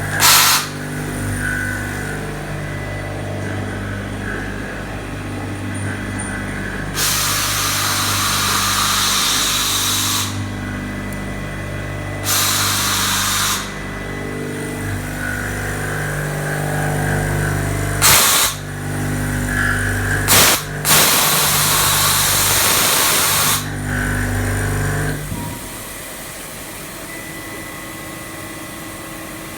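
CNC milling machine thread-milling an M30 internal thread: a steady machine hum with several loud hissing stretches lasting one to three seconds each. About 25 seconds in, the hum drops away, leaving a quieter steady sound.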